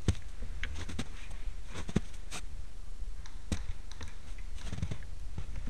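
Scattered sharp clicks, about eight at irregular intervals, over a low steady rumble.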